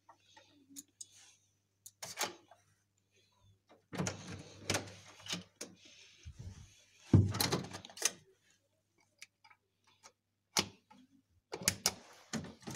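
Hotel room door with a key-card lock being handled: scattered clicks and rattles of the handle and latch, and a louder thud about seven seconds in as the door shuts. Near the end, more clicks as a key card is pushed into the wall power slot.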